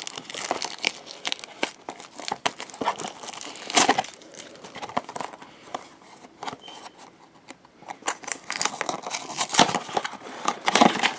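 Cardboard blind-box packaging handled close up, crinkling and crackling with scattered small taps and clicks, quieter for a couple of seconds past the middle.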